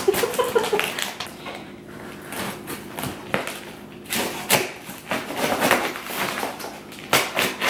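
A knife slitting the packing tape on a cardboard box: irregular short scraping cuts with light knocks against the cardboard.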